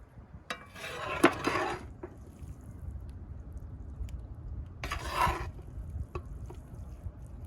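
Two short bursts of utensils clattering and scraping against dishes, about a second in and again about five seconds in, with a sharp clink in the first, over a low steady rumble.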